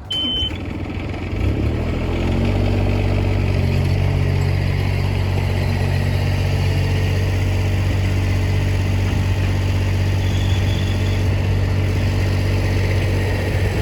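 A vehicle engine, most likely the towing vehicle's, runs loud and steady, rising briefly in pitch a second or two in and then holding an even low drone. A short high beep sounds right at the start.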